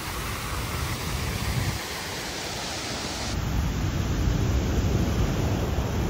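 Heavy ocean surf breaking, a steady hiss of water mixed with wind rumbling on the microphone; the low rumble grows louder about halfway through.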